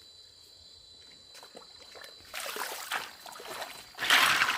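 Water splashing and sloshing in two bursts, the louder one about four seconds in, after a couple of seconds of faint steady high insect buzz.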